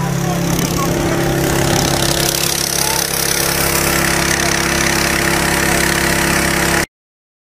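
An engine running steadily, joined by a loud rushing hiss about a second and a half in. Both cut off abruptly near the end.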